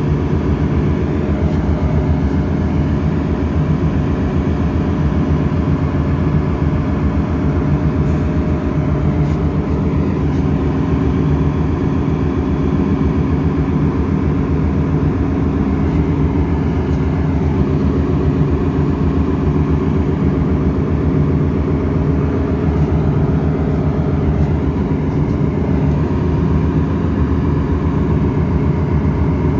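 Ship's engine-room machinery running, a steady deep drone with a faint constant hum above it and no change throughout.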